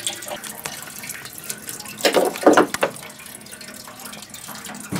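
Engine coolant pouring and splashing steadily out of a DeLorean's disconnected Otterstat coolant pipe as the cooling system drains, with a short, louder clatter of a few strokes about two seconds in.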